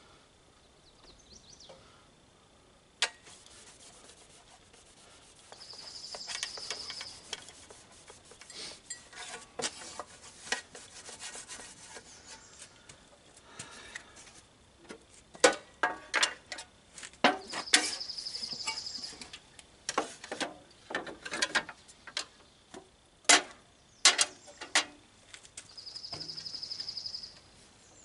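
A rag scrubbing and wiping a metal planer part to clean off hardened pine sap, with scrapes and sharp knocks as the part is handled, busiest in the second half. A high, rapid trill sounds three times, each over a second long.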